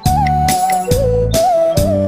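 Electronic organ playing a slow song melody as single held notes with short scooping grace notes, over its own bass-and-chord accompaniment and a steady drum beat of about two hits a second.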